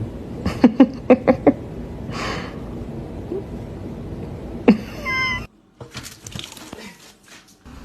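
A cat meowing: a quick run of about five short calls about a second in, then a longer meow a little past halfway.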